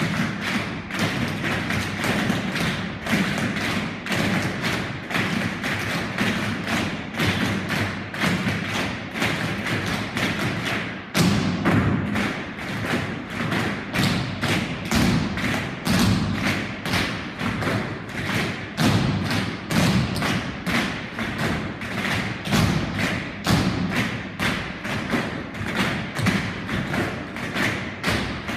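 A group of dancers' tap shoes striking a wooden floor in unison: American-style tap, a dense, fast run of sharp taps and stamps, with a heavier accented hit about eleven seconds in.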